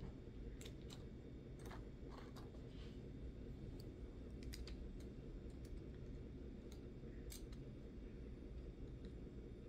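Nail polish bottles clicking lightly against each other and their rack as they are moved about, a dozen or so scattered, irregular clicks over a low steady hum.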